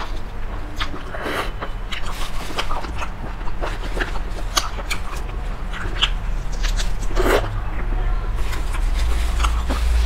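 Close-miked eating sounds: a person sucking and biting meat off a cooked chicken bone and chewing, with many wet smacks and clicks of the mouth, over a steady low hum.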